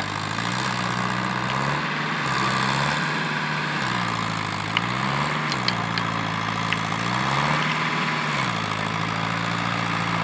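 Farm tractor's diesel engine running, revved up briefly and let fall back about every three seconds. A few faint short ticks over it.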